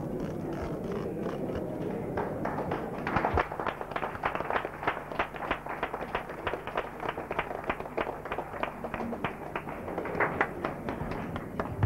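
A small crowd applauding. The clapping starts about two seconds in, and separate claps can be heard.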